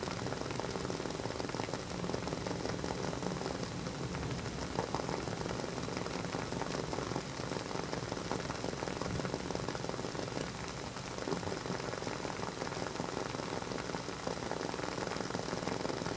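Wooden wick of a WoodWick candle burning, crackling with a dense stream of tiny pops and a few louder snaps, like a small fireplace.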